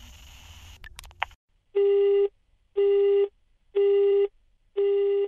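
Telephone busy tone: a steady beep that repeats about once a second, half a second on and half a second off, four times. Before it there is a faint line hiss broken by a couple of clicks.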